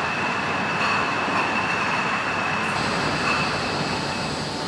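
Glass returnable-bottle filling line running: a steady machine noise with a thin high whine over it.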